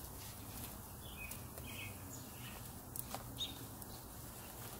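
Faint bird chirps over a low steady background hum, with a couple of light clicks about three seconds in.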